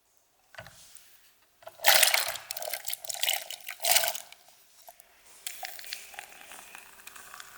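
Water running and splashing, loudest and uneven from about two to four seconds in, then a softer, steadier flow from a little after five seconds.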